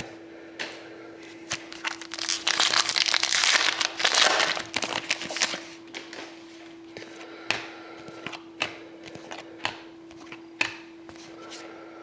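Trading cards being handled and flicked, with light clicks and taps, and a few seconds of loud crinkling plastic starting about two and a half seconds in. A faint steady hum lies underneath.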